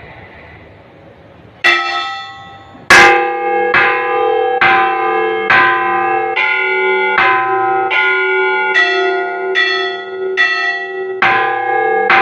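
Church bells ringing. A ring dies away, one bell strikes just under two seconds in, and from about three seconds in the bells strike in a quick steady run, a little more than one a second, on bells of different pitch.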